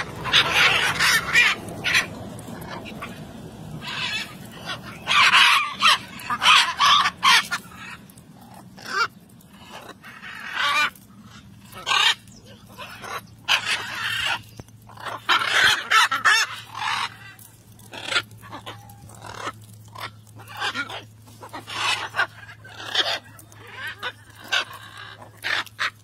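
A flock of blue-and-gold macaws squawking, harsh calls coming in short irregular bursts one after another.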